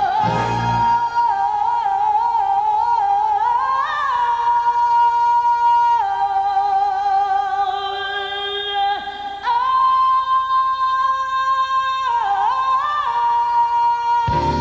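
Music: long, held sung notes with vibrato, moving to a new note every few seconds over light backing. The low bass drops away about a second in.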